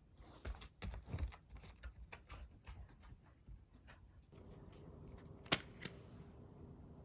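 Irregular small clicks and taps, with a steady low hum coming in about four seconds in and one sharp click soon after.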